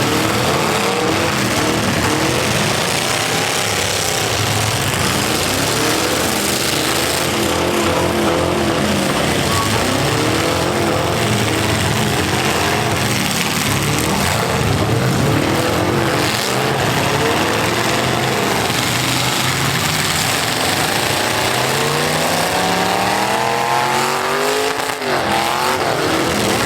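Several full-size V8 demolition derby cars running hard, their engines revving up and down over one another in a constant loud din, with one engine climbing in a long rev near the end.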